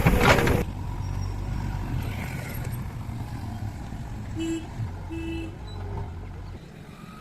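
Diesel engine of a JCB 3DX backhoe loader running with a low, steady rumble, after a loud clattering burst at the start; two short beeps sound a little past halfway, and the rumble drops away near the end.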